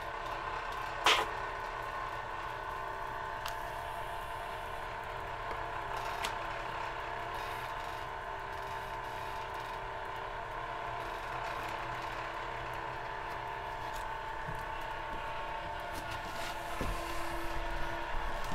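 Homemade 'antigrav' generator running with a steady whine of several fixed tones. About a second in, one sharp clink, the aluminum pie plate jumping up against the glass insulator plate above it, followed by a few faint ticks and a brief low thud near the end.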